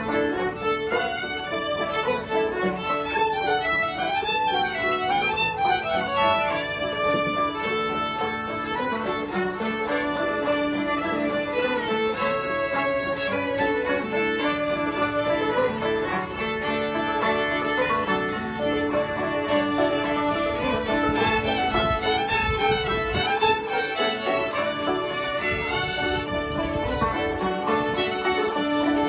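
Old-time string band jam playing a fiddle polka: several fiddles carry the tune together over banjo and guitar accompaniment, playing steadily without a break.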